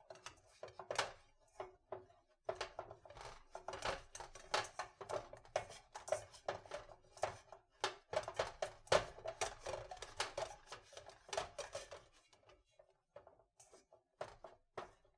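Boiled Yukon Gold potatoes mashed by hand in a stainless steel bowl. Quick, irregular squishes and knocks of fingers against the metal sound with a faint ring from the bowl, and they thin out after about twelve seconds.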